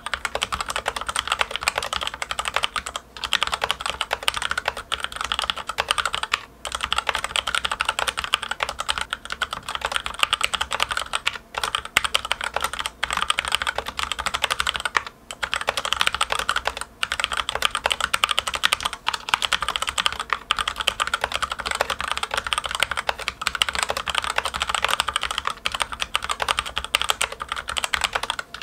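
Continuous fast typing on a Logitech K835 TKL mechanical keyboard with TTC Red linear switches and ABS keycaps: a dense run of clacky keystrokes, broken by a few brief pauses. There is hardly any spring ping or hollow case ring, but the keystrokes are somewhat noisy for a linear switch.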